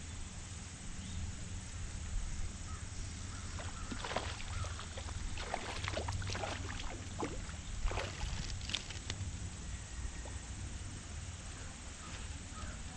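A hooked trout splashing and thrashing at the pond surface as it is reeled in: a run of sharp splashes from about four to nine seconds in, over a steady low rumble.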